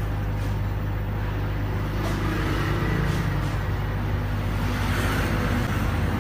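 Steady low electric hum of a laser cutting machine's running equipment, a mains-driven motor such as its exhaust fan or pump.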